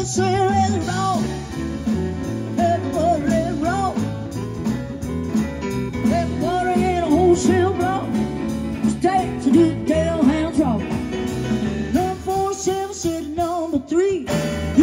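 Live rock band playing: an electric guitar carries a bending melodic line over a walking bass and drums.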